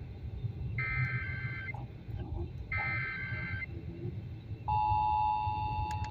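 Emergency Alert System SAME header heard over a radio: two buzzy digital data bursts of about a second each, two seconds apart. About two-thirds of the way in, the steady two-tone EAS attention signal begins, louder than the bursts, opening the alert for a monthly test.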